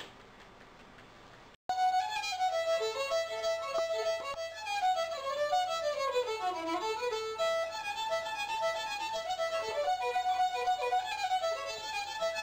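Solo fiddle bowed in a fast tune, quick runs of notes that dip lower about halfway through and climb back up. A faint last note fades out first, then after a brief break the tune starts abruptly.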